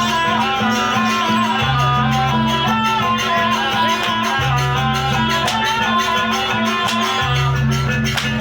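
Jaranan dance music: a wavering high melody over long low tones that change every two to three seconds.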